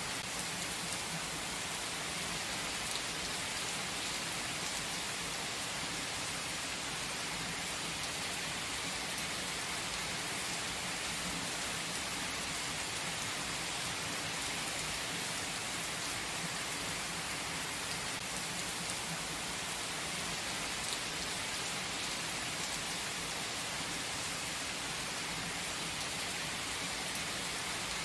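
Steady rain falling through conifer forest: an even, unbroken hiss with scattered ticks of single drops.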